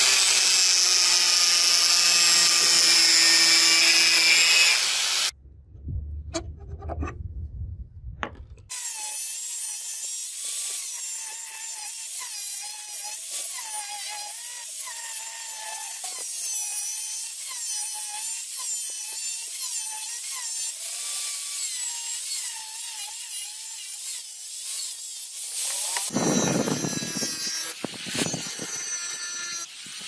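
Angle grinder with a thin cut-off disc cutting slots into a 52100 bearing-steel knife blank. It makes a steady high grinding hiss, and the motor whine wavers as the disc bites. The sound comes in several cut-together takes, with a few seconds of low rumble and clicks about five seconds in.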